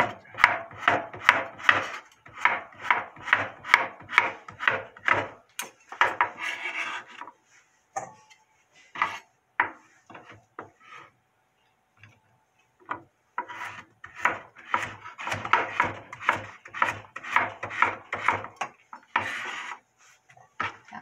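Chef's knife chopping cucumber on a wooden cutting board: quick knocks of the blade against the board, about four a second, for several seconds. After a pause with a few scattered clicks, the knife chops again in a second run of rapid knocks, then there is a short scraping sound near the end.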